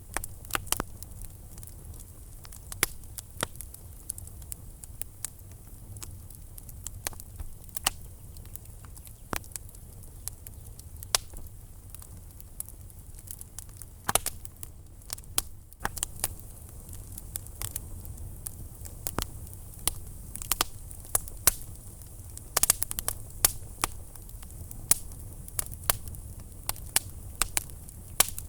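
Wood fire burning in a fireplace, crackling with irregular sharp pops and snaps over a steady low rumble of the flames.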